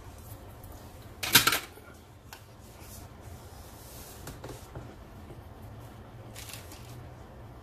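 Hands handling small RC parts on a paper instruction sheet: soft rustling and light taps, with one brief, loud handling noise about a second and a half in, over a steady low hum.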